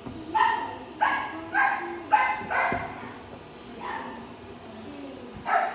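A dog barking repeatedly in short barks: about five in quick succession over the first three seconds, one more near four seconds and another near the end.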